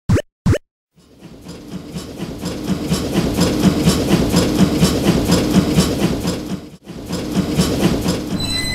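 Train running past with a steady, rapid clickety-clack of wheels over rail joints, building up over the first couple of seconds. Two short rising sound-effect glides come just before it, and a steady high tone joins near the end.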